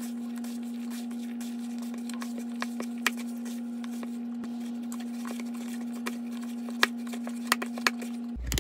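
Hands squeezing and kneading a soft, crumbly dough in a plastic bowl, with scattered sharp clicks and sticky smacks, the strongest near the end. A steady low hum runs underneath throughout.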